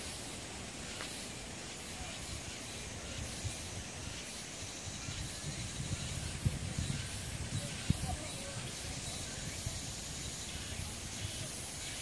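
Cicadas singing in the trees: a high, hissing buzz that pulses in a regular rhythm, over a low rumble.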